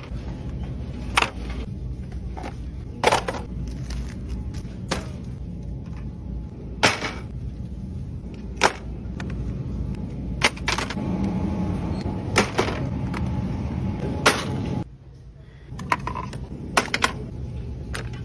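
Scattered sharp clicks and taps of plastic retail packaging and products being handled and lifted from shelf hooks, over a steady low background hum.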